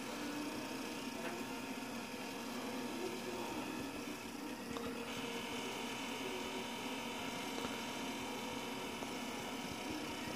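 Steady low hum and hiss with no distinct events: room tone.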